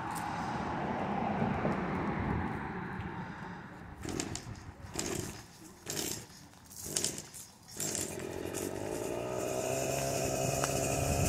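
String trimmer running while its head cuts through dry grass. About four seconds in it revs in about four short bursts with dips between them, then settles back to a steady run.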